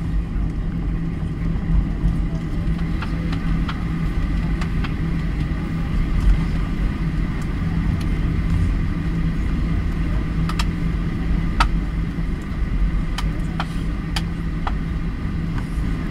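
Cabin noise of a Boeing 737 with its jet engines at low power: a steady low rumble with a constant hum. A few light clicks or rattles come through in the second half.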